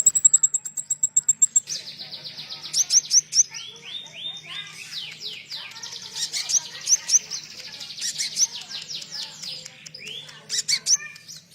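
Konin songbird singing: a fast run of high, sharp ticks, then a long rapid chattering trill of quick down-slurred notes that breaks off near the end.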